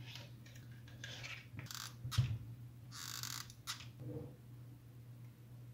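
Faint handling noises as wires and the plastic case of a bench power supply are moved about: short rustles and light taps, with a small knock about two seconds in. A steady low hum runs underneath.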